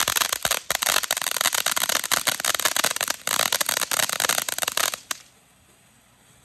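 Fireworks going off in a rapid, dense run of crackles and pops that stops suddenly about five seconds in.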